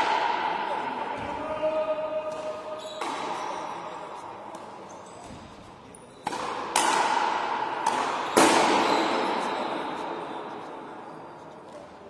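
Frontenis rally: the hard rubber ball cracks off racquets and the fronton wall, and each hit rings out with a long echo in the big hall. Hits come about three seconds in, twice in quick succession a little past six seconds, and again past eight seconds.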